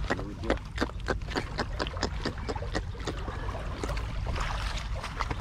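Wind rumbling on the microphone over lapping water, with a rapid series of sharp clicks, about five a second, through the first three seconds that then thin out.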